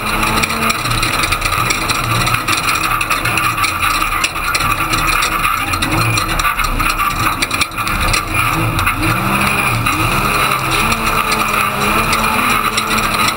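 Ford Ranger desert race truck heard on board at speed, its engine revving up and down as the driver works the throttle. Steady road and wind noise runs underneath, with frequent knocks and rattles from the truck pounding over rough dirt.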